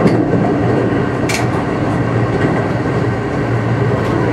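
Kintetsu rapid express train running at speed, heard from inside the car: a steady rumble of wheels on the rails, with two short sharp clicks in the first second and a half.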